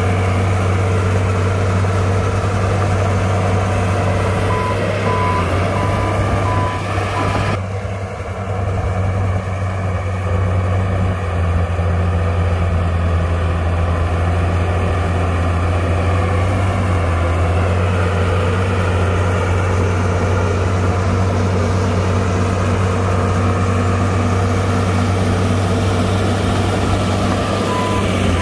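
Heavy diesel engine of earthmoving equipment (bulldozer or dump truck) running steadily with a deep drone. A reversing alarm beeps a few times about five seconds in and again near the end.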